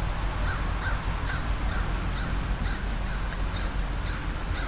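Outdoor background: a steady high-pitched whine over low rumbling noise, with a string of faint short bird calls about every half second.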